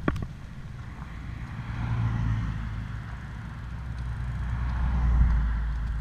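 Mountain bike rolling down a paved road: a steady low rumble of tyres and wind, with a car going by that swells twice, loudest near the end. A single sharp knock right at the start as the bike drops off the cobbles.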